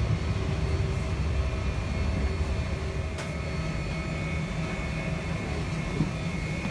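Steady low rumble of a parked Boeing 737-800 heard at its boarding door, with a faint high whine over it; a single sharp click about three seconds in.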